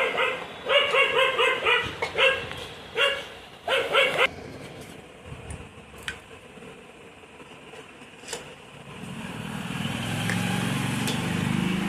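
A dog barking in quick, high-pitched yaps for the first four seconds or so. Then a few light clicks, and a low engine hum that swells near the end.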